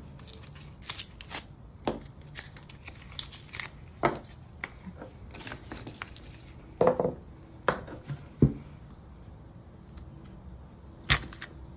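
Cardboard firework tubes being torn apart and handled on a tabletop: irregular tearing and rustling of paper, with light knocks of the tubes against each other and the table, a few of them sharper.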